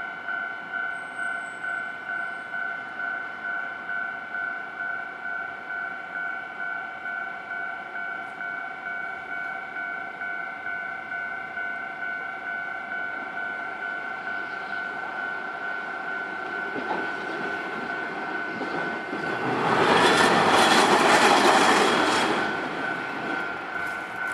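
Japanese level-crossing alarm ringing in a steady two-tone rhythm, about one and a half strikes a second. A Hankai Tramway tram rumbles over the crossing, building from about 16 s and loudest from about 19.5 to 22.5 s, while the alarm keeps ringing.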